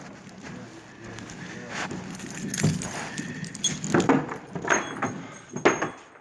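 Clinking and rattling of small metal objects, with a few sharp knocks at irregular moments.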